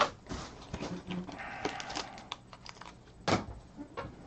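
Irregular light clicks and taps, with a sharp click at the start and another a little past three seconds in.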